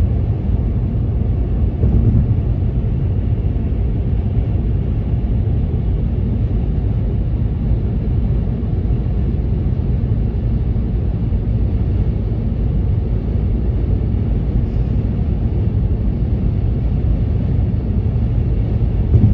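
Steady low rumble of road and engine noise heard inside a car cruising on a highway.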